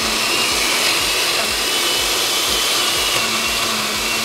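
Countertop blender running steadily at speed, its motor giving a thin high whine as it purées a chunky pepper, cilantro and mayonnaise salsa into a smooth sauce.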